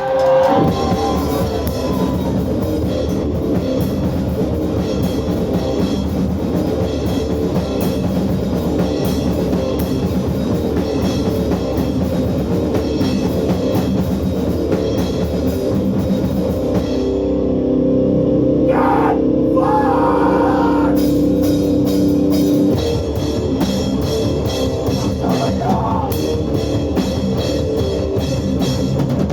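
Live hardcore power-violence band playing loud and fast: rapid drumming with crashing cymbals under heavily distorted guitar and bass. About two-thirds of the way through, the drums drop out for a few seconds of held, ringing guitar chords, then the fast drumming comes back in.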